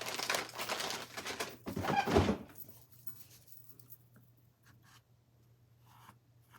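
Wet wipe being pulled from its plastic packet: a dense rustle for the first couple of seconds, ending in a louder pull, then a few faint taps.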